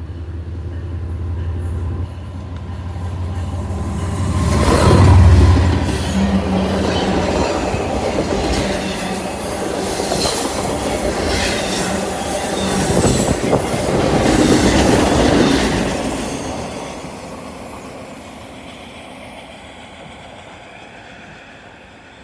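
Diesel freight train passing close by. The locomotive's low rumble swells to its loudest about five seconds in. The flatcars then roll past with repeated wheel clacks over the rail joints and a thin, high wheel squeal, and the sound fades steadily over the last several seconds as the train moves off.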